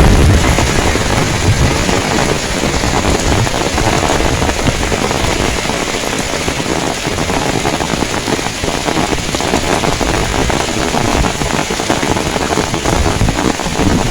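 Heavy rain pouring steadily, a dense even hiss of drops. Wind buffets the microphone with a low rumble at the start, easing off within the first second or so, and again near the end.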